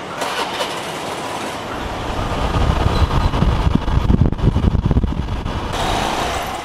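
Riding on a small motor scooter in traffic: the scooter's engine running under heavy wind buffeting on the microphone, a loud, gusty low rumble through the middle few seconds. Lighter street noise comes before it, and it gives way to quieter market ambience near the end.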